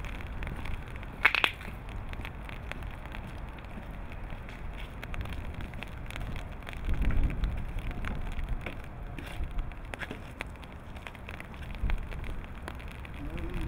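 Outdoor street background noise: a low rumble with scattered crackles and clicks, a brief sharp high-pitched sound about a second in, and a louder low swell around the middle.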